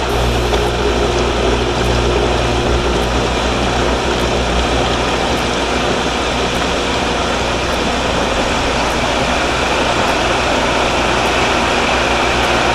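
Pool pump motor running while it primes, with the steady rush of water filling the strainer pot. A low hum under the noise fades out about three seconds in.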